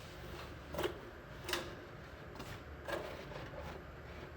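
Three light clicks or knocks of small parts being handled, spaced about a second apart, over a faint low hum.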